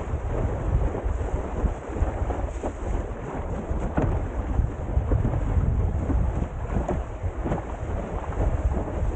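Wind buffeting the microphone over water rushing past a windsurf board sailing fast through chop. There are occasional sharp slaps of water against the board.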